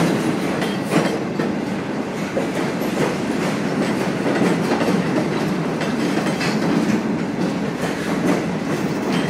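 Freight cars of a CN train (boxcars and open-top cars) rolling past close by: a steady rumble of wheels on rail, with repeated clacks as the wheels cross rail joints.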